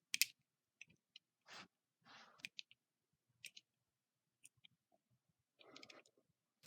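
Light clicks and handling noise from an automatic switchblade knife being gripped and set up in the hand, with a sharp click just after the start and a few fainter clicks later.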